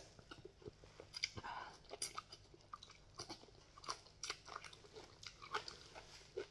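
A person slurping odong noodles and broth from a bowl held to the mouth, with wet sipping and chewing sounds and scattered small mouth clicks.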